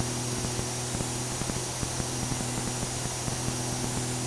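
Velocity pusher aircraft's piston engine running at low power while taxiing, a steady low drone with faint regular ticks.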